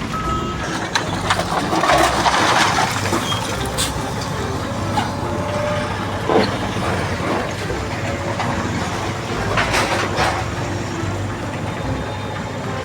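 A heavy engine running steadily, with a few sharp knocks and clicks over it.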